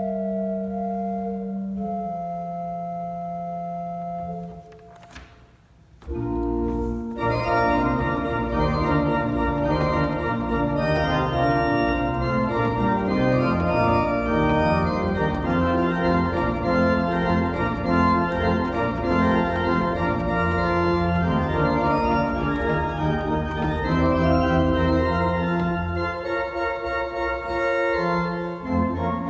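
Two-manual church organ with pedalboard being played: a held chord dies away about five seconds in, a brief near-silent pause with a single click, then a full passage of moving chords over a deep pedal bass line.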